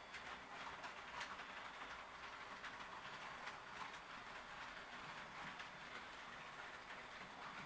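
HO-scale model train running on the track: a faint rolling rattle of wheels, with irregular small clicks over rail joints.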